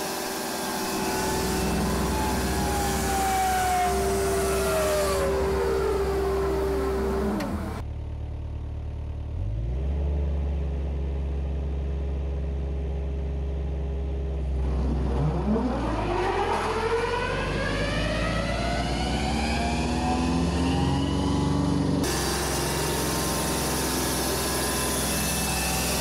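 Avant CH100 hydraulic wood chipper's rotor, driven from an Avant 635 loader, spinning down with a whine falling in pitch over about seven seconds, leaving the loader's low engine hum. About halfway through it spins back up with a rising whine, then runs steadily at speed.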